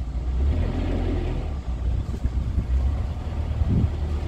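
Low, steady rumble of a narrowboat's diesel engine running.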